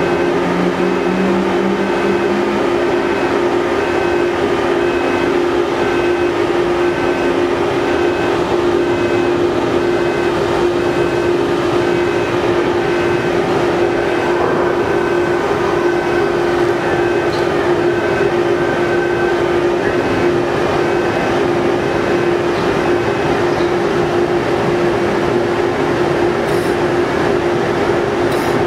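The ferry MV Salish Eagle's engines and shipboard machinery running under way, a loud, steady drone with a constant low hum. Faint high pips repeat through most of it.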